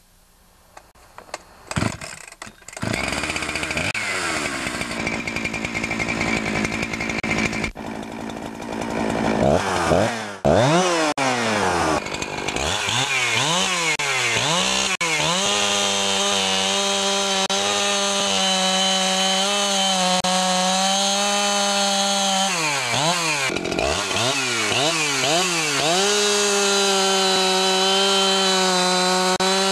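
Husqvarna 365 two-stroke chainsaw starting: a few sharp pulls near the start, then the engine catches and runs. It is revved up and down repeatedly, then held at high revs for long stretches, with a brief drop in revs about two-thirds of the way in.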